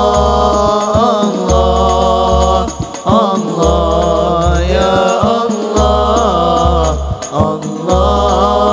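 Sholawat devotional singing by young men's voices through microphones, in long drawn-out, gently wavering notes, over drums keeping a steady beat with a deep bass thud.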